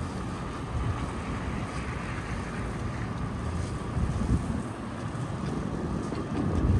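Storm wind buffeting the microphone in uneven low rumbling gusts, over a steady hiss of city street noise.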